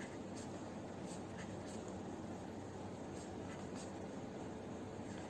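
Pen drawing on paper: several short scratching strokes as zigzag resistor symbols are sketched, over a steady low background hiss.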